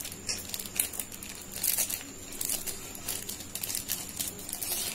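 Plastic packet of table tennis balls crinkling as it is cut open with scissors: a run of irregular crackles.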